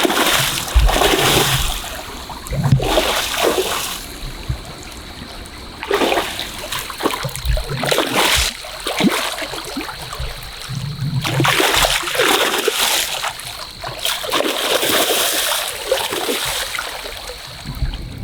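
Water splashing in a shallow river in irregular bursts, every second or two.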